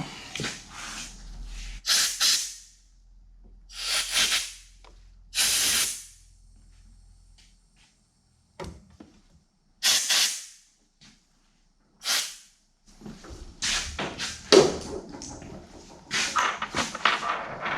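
Short blasts of compressed air, about five separate bursts of hiss, blowing metal chips out of freshly tapped bolt holes. Near the end comes a busier stretch of clattering handling noise.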